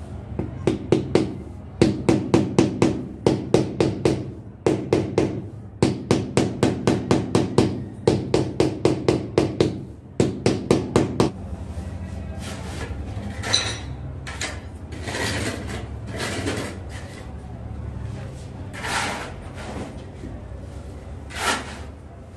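Rubber mallet tapping a porcelain floor tile down into its mortar bed: rapid runs of dull knocks, about five a second, in several bursts. After about eleven seconds the knocking stops and there are only quieter, occasional scraping sounds as mortar is worked around the floor drain.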